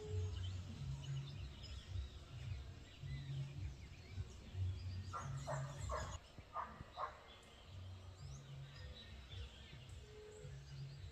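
Several wild birds chirping and calling over a low rumbling background, with a quick run of louder, short repeated calls about five to seven seconds in.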